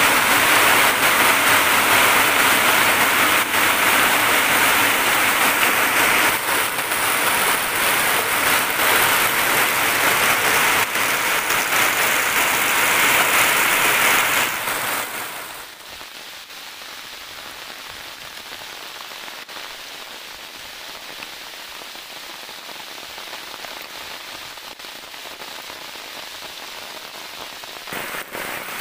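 Heavy monsoon rain falling steadily, a loud even hiss that drops suddenly about halfway through to a quieter, steady rain hiss.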